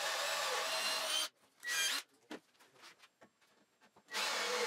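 A drill boring a concealed-hinge cup hole into a wooden cabinet door with a Forstner bit through a drilling jig, the motor whining steadily as it cuts. It stops about a second in, gives one short burst near two seconds, then starts cutting again about four seconds in.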